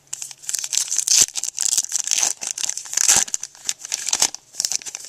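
Foil wrapper of a 2008 Upper Deck Timeline baseball card pack being torn open and crinkled, a dense run of irregular crackles.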